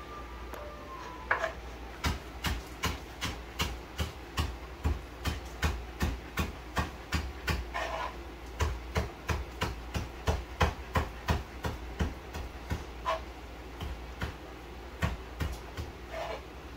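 Knife chopping green shallot (scallion) on a wooden cutting board: steady sharp knocks about two to three a second, slowing and pausing briefly near the end.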